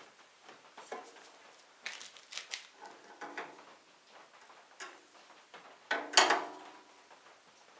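Irregular clinks and knocks of metal tool-box parts and tools being handled, a few of them ringing briefly, with the loudest clatter about six seconds in.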